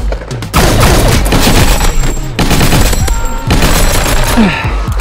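Nerf Ultra Speed motorized blaster firing in rapid full-auto bursts: a fast, loud rattle of shots with a short break about half a second in and a sparser stretch near the middle.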